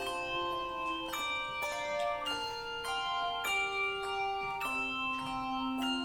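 Instrumental music of slow, bell-like struck notes and chords, each ringing on, with a new strike about every half second to a second.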